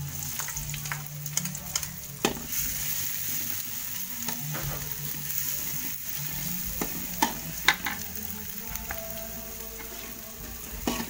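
Minced garlic and shallots sizzling in hot oil in a metal wok, the sizzle growing louder about two seconds in, while a metal slotted spatula scrapes and clinks against the pan as they are stirred; a couple of sharp clinks stand out about seven seconds in.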